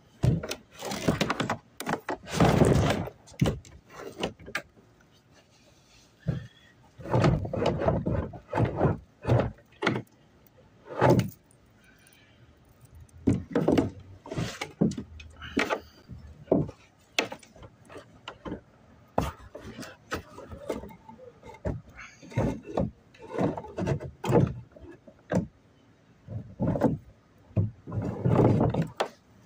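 Irregular rustling, scraping and knocking of a phone microphone being handled or rubbed against fabric, in uneven bursts with short sharp clicks between them.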